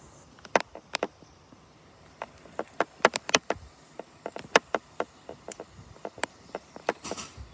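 Irregular sharp clicks and taps, a dozen or more at uneven spacing, some in quick pairs, over a faint steady outdoor background.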